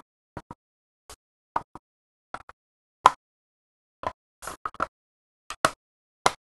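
Irregular short clicks and light knocks of a Minisforum HX90 mini PC's case parts and screws being handled while the case is reassembled, with the sharpest clicks about three seconds in and near the end.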